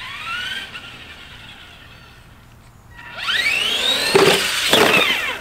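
RC car's motor whining in rising and falling pitch as it speeds up and slows, with a brief rev at the start and a louder run from about three seconds in. Two sharp knocks come about half a second apart as the car hits the wooden ramp and lands.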